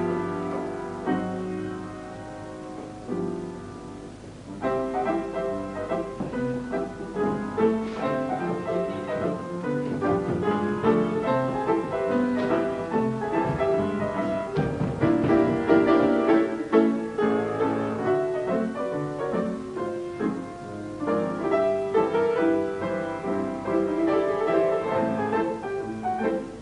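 Instrumental music led by piano, with a softer passage a few seconds in before fuller playing resumes; no singing.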